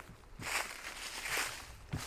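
Footsteps of a hiker walking on a forest path: two steps about a second apart.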